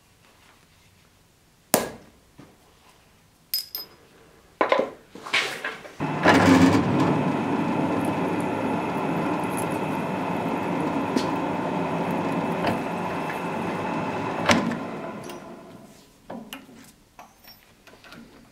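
A sharp metal tap about two seconds in and a few lighter knocks, then a bench drill press starts, runs steadily for about eight seconds drilling into a steel part clamped in a machine vise, and winds down. Light clatter of the vise being handled follows near the end.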